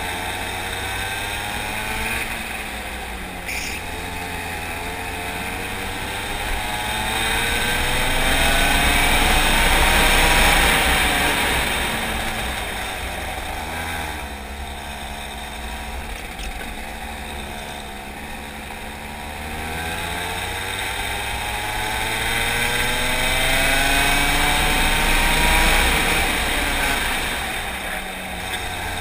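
Go-kart engine heard from on board while lapping a track. Its pitch rises and falls with each acceleration and lift-off: it climbs to its loudest about ten seconds in, drops away, and climbs again from about twenty seconds in before falling off near the end, with a steady rush of wind and tyre noise underneath.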